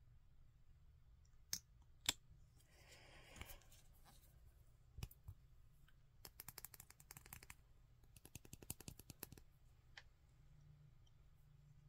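Close, quiet handling of a lip gloss tube and its plastic packaging. A few sharp clicks and a brief rustle come first, then two runs of quick light tapping and clicking, about ten a second, in the second half.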